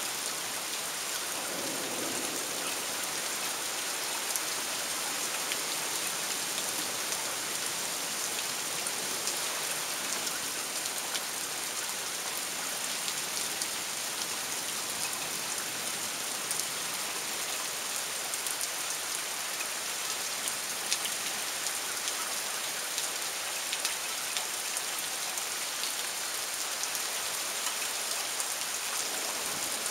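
Steady rain falling, an even hiss with scattered individual drops ticking through it.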